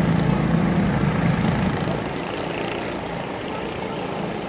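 Engines of junior sprint race cars running on a dirt oval, a steady drone that drops a little about two seconds in.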